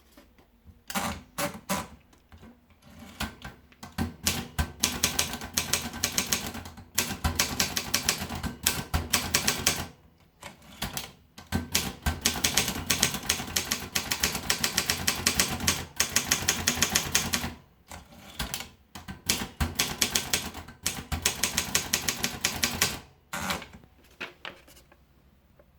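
Optima Elite typewriter being typed on: rapid runs of key strikes lasting a few seconds each, broken by short pauses.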